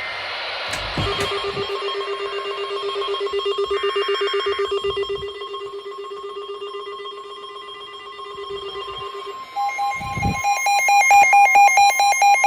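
Weather radio alert tones announcing a severe thunderstorm warning: a steady, fluttering tone for about eight seconds, then rapid pulsing beeps from about ten seconds in, growing louder.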